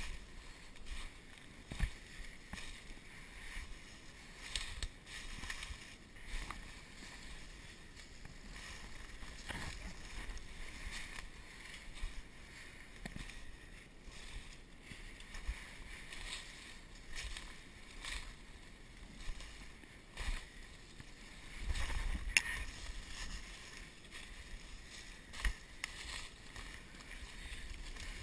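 Footsteps crunching through dry leaves and underbrush, with branches and brush scraping past and irregular sharp snaps of twigs.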